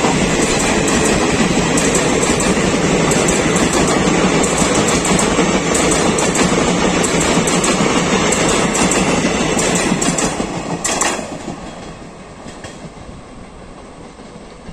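Coaches of a passenger express train running through at speed: steady loud rumble of wheels on rail with clickety-clack over the rail joints. About eleven seconds in there is a sharp click and the sound drops away to a much quieter, distant train noise.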